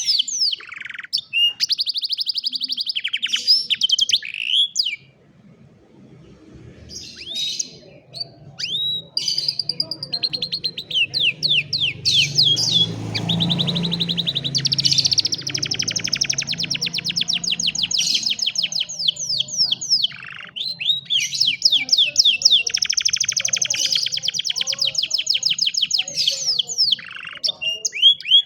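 Domestic canary singing: long, fast trills and quick runs of sweeping notes, broken by a pause of about three seconds after the first few phrases. A faint low rumble sits under the song midway.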